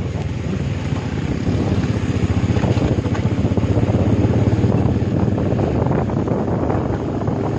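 Motorcycle engine running while riding, with wind buffeting the microphone; the sound swells a little about a second and a half in.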